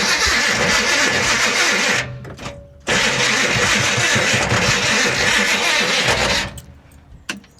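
Car starter motor cranking the engine in two bursts, about two seconds and then about three and a half seconds, with a short break between them. The starter sounds like it is hanging up or dragging, which the owner takes for a starter that may not be shimmed properly.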